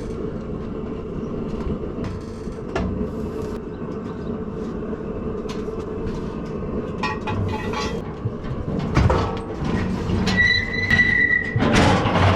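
Steady mechanical hum with metal clanks and rattles from cattle-handling gates and chute, and a brief high-pitched squeal about ten seconds in.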